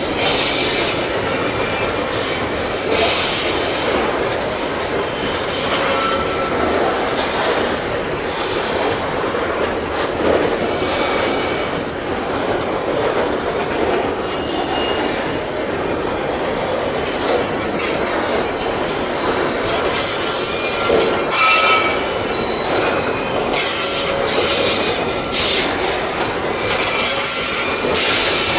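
Loaded coal hopper wagons rolling slowly along the track, a steady rumble of wheels on rail broken by short, scattered squeals and hisses from the wheels.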